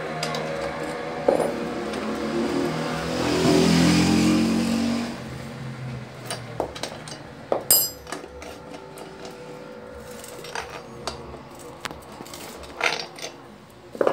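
A motor vehicle's engine runs, getting louder about three to five seconds in and then dying away. After that come scattered sharp metal clicks and knocks as the bottom-bracket removal tool is worked and pulled out of the bicycle frame's bottom bracket shell.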